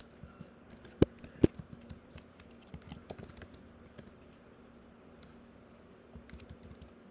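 Keystrokes on a MacBook Air's built-in keyboard: two sharper key clicks about a second in, then scattered lighter taps as a short command is typed and a typo is backspaced.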